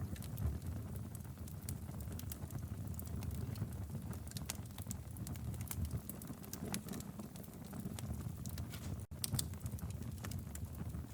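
Wood fire burning in a fireplace: irregular crackles and pops over a steady low rumble of the flames, with a momentary gap in the sound about nine seconds in.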